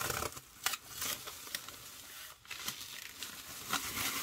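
Bubble wrap and clear plastic packaging crinkling and rustling as it is handled and pulled away from a vinyl LP. The sound comes in irregular crackles, with a brief lull a little past halfway.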